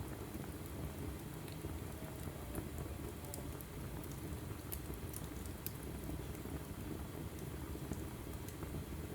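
Wood fire burning in a fireplace: a steady low rush from the flames with scattered sharp crackles and pops from the burning logs at irregular times.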